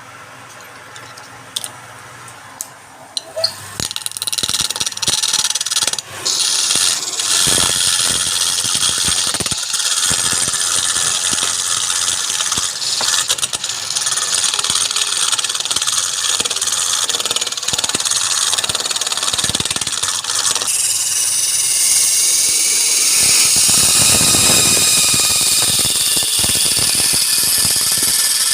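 A turning tool cutting a workpiece spinning on a lathe: a few clicks, then a steady hissing scrape from about four seconds in that turns brighter and more even about twenty seconds in.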